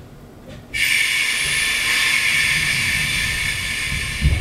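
Compressed air hissing from the 485-series train, starting suddenly about a second in and holding steady, with a few low clunks near the end.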